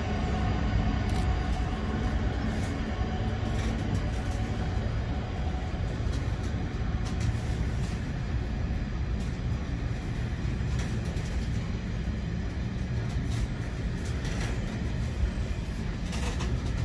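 Class 66 diesel freight locomotive's two-stroke V12 engine drawing away with a train of loaded ballast wagons, its drone fading after the first few seconds while the wagons rumble past with scattered wheel clicks on the rails.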